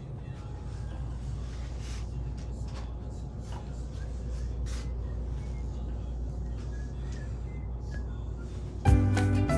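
Shop room tone: a steady low hum with scattered faint clicks and knocks. Background music starts abruptly near the end.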